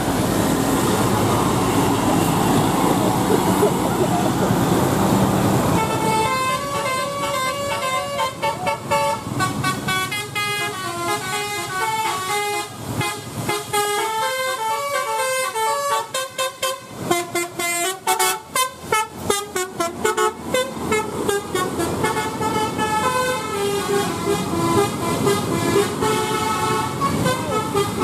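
Bus 'telolet' multi-tone horn playing a melody of short stepping notes, starting about six seconds in and carrying on to near the end, with a stretch of rapid pulsing notes in the middle. Before the horn starts there is the bus engine and traffic noise.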